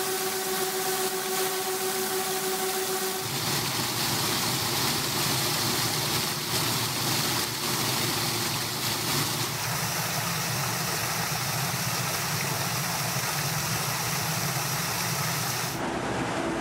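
Micro-hydro turbines running: a steady rush of water jetting through the turbine housings and pouring out below. For the first three seconds a steady pitched whine from the spinning turbine runs over it. The sound changes abruptly about 3, 9 and 16 seconds in as different installations take over.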